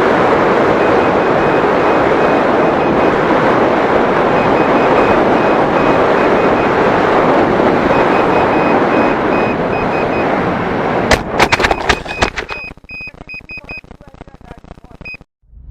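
Steady rushing noise of the Mini Drak FPV flying wing in flight, wind and propeller together, with faint intermittent high beeps. About eleven seconds in it is broken off by a quick series of knocks, and then it is much quieter.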